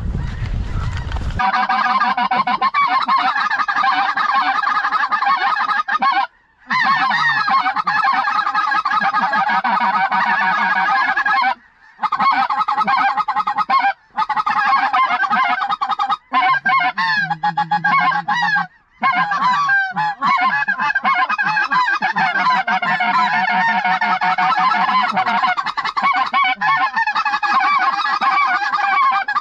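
Many geese honking at once, a dense chorus of overlapping calls from a large flock. It starts abruptly about a second in and cuts out suddenly for moments several times.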